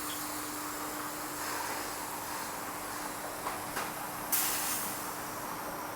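Pneumatic tyre-changing equipment: a short, loud burst of compressed-air hiss a little over four seconds in, over a steady hum. Two light clicks come just before it.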